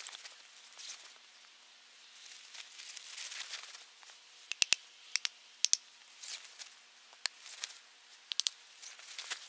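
Rustling of a nylon backpack being handled, then a series of sharp clacks from about halfway in, some coming in quick pairs, as sticks of firewood are picked up and packed into it.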